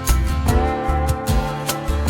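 Background music: a steady beat with plucked guitar chords.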